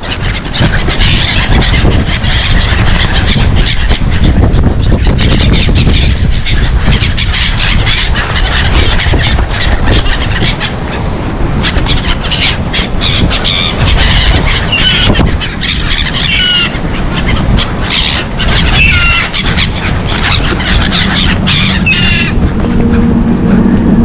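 A flock of black-headed gulls squealing and calling as they flap around close by, with their calls thickest in the second half. Wind rumbles on the microphone throughout.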